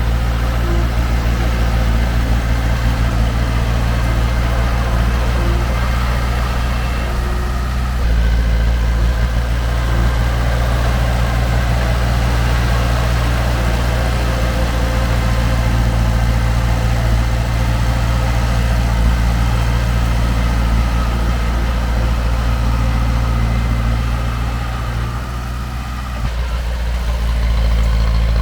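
Heavy diesel engine of earthmoving machinery running steadily and loudly, with a slight change in note about a third of the way through and a brief drop in loudness near the end before it comes back up.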